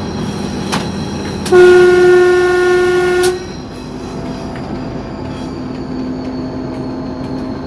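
A TEP70 diesel locomotive's horn gives one loud, steady blast of nearly two seconds, starting about one and a half seconds in. Under it, the locomotive's diesel engine runs hard under heavy load at a high power notch, with a thin high turbocharger whistle running through.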